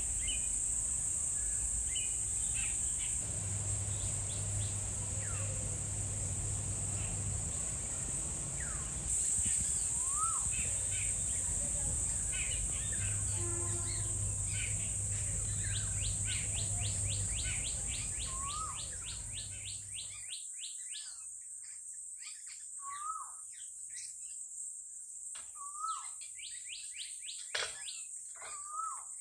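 Birds calling, one repeating a short upswept call every few seconds, over a steady high insect drone; a fast rattling trill comes in midway.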